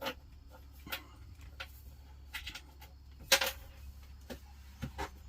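Scattered light clicks and taps, with one louder knock a little past three seconds in, over a low steady hum.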